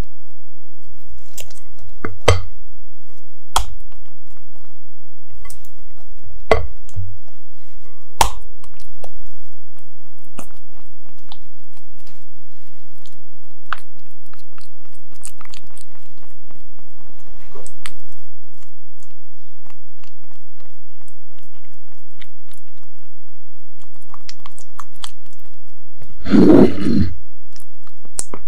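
Thick Oreo cream cheese filling being pressed and spread with a silicone spatula inside a clear plastic cake ring: soft wet squishing with a few sharp taps in the first eight seconds. A louder thump comes near the end.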